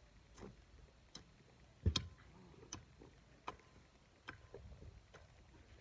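Garden hoe chopping into dry soil in a steady rhythm, a sharp click roughly every 0.8 seconds, with one heavier thud about two seconds in.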